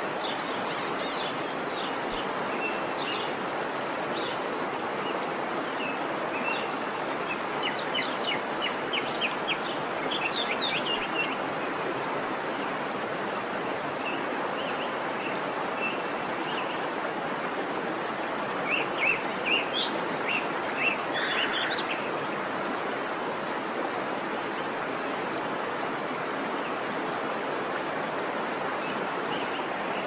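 River water rushing steadily, with small birds chirping over it now and then, in quick runs of chirps about a third of the way in and again about two-thirds of the way in.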